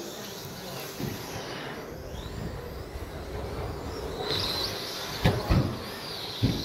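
Electric 13.5-turn brushless motors of 2wd RC stadium trucks whining as they race, the high whine gliding up and down about four seconds in, over the rolling noise of tyres on carpet. Sharp thuds of the trucks hitting the track come about a second in and three times close together near the end.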